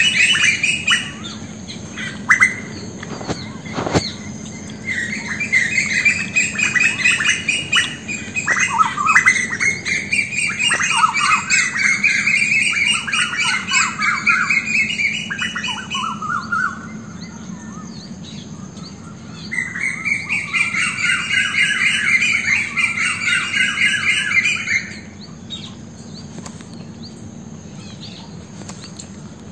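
Birds calling and chattering in garden trees: rapid runs of repeated calls that fall in pitch, in two long bouts. The second bout ends abruptly near the end, leaving only scattered calls.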